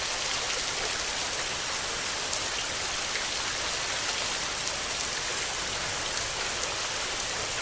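Steady rain falling: a dense, even hiss of drops with faint separate drop ticks scattered through it.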